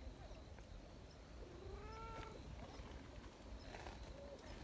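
A cat gives one short, faint meow about a second and a half in, rising slightly in pitch.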